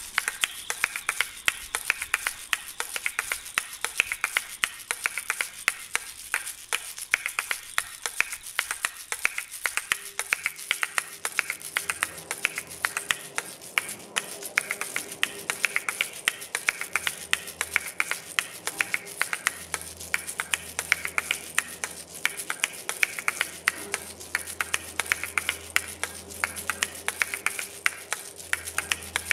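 Soundtrack of rapid, irregular clicks and ticks over a high hiss, with a steady tone coming in about ten seconds in and a low drone joining later.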